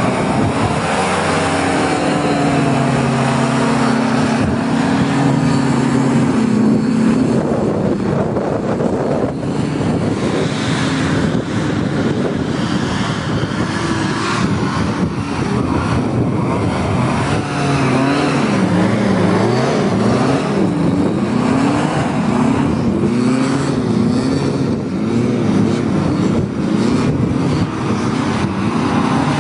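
Small hovercraft's engine and rear ducted propeller running. The engine note falls in pitch over the first few seconds, then in the second half the revs rise and fall over and over, about once a second.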